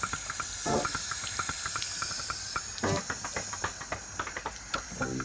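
Water running from a tap in a steady hiss, with small splashes and clicks, and two short voice sounds about a second and three seconds in.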